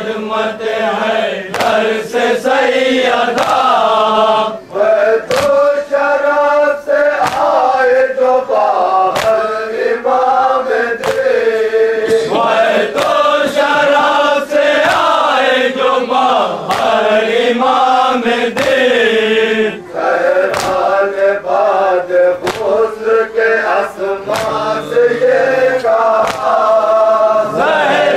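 Male voices chanting a nauha, an Urdu Shia mourning lament, in a slow held melody, with sharp slaps of matam chest-beating about once a second.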